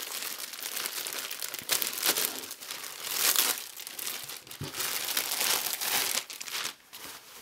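Clear plastic poly bag crinkling as it is opened by hand and a pair of boxer shorts is pulled out of it, loudest about three seconds in.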